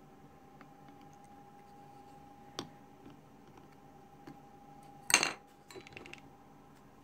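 A few sharp clinks and clicks of hard objects being handled, the loudest a brief clatter about five seconds in followed by several small ticks, over a faint steady high-pitched hum.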